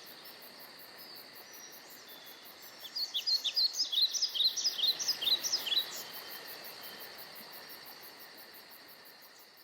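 Outdoor countryside ambience: a bird gives a quick run of short, falling chirps for about three seconds in the middle, over a steady faint insect hum.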